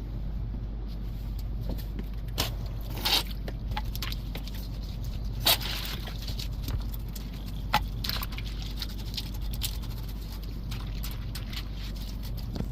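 Scraping, rubbing and a few sharp clicks and knocks from cleaning around an RV toilet, the loudest click about halfway through, over a steady low hum.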